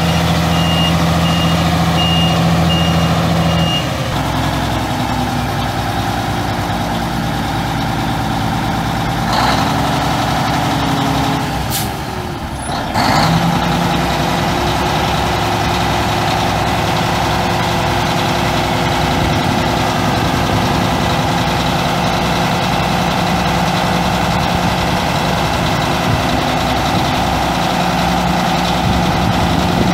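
Mack CH-5500 six-cylinder turbo diesel of a 1983 Mack dump truck running steadily. A reverse alarm beeps for the first few seconds and then stops. A little before the middle comes a short burst of air hissing from the truck's air system.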